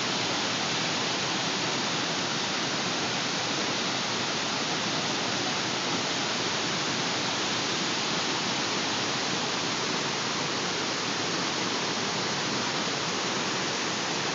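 Whitewater of Linville Falls rushing through a narrow rock chute: a steady, even roar of falling water that holds unchanged throughout.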